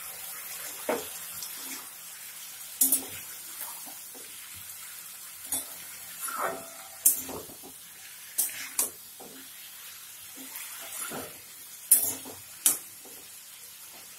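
Ground spices and green chilli paste with a splash of water sizzling in a hot pan of fried pointed gourd and potato. A utensil stirs and scrapes through it, with sharp knocks against the pan every second or two.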